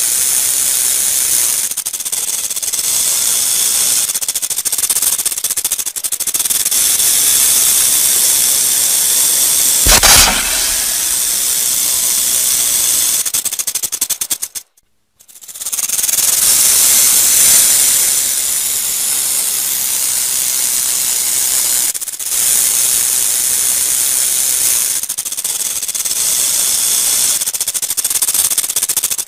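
A rattlesnake buzzing its tail rattle: a continuous dry, high-pitched hissing rattle. There is a brief louder burst about ten seconds in, and the rattling cuts out for about a second halfway through before starting again.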